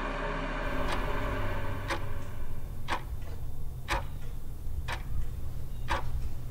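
A clock ticking steadily about once a second over a low steady hum. A held music chord cuts off just under a second in, before the first tick.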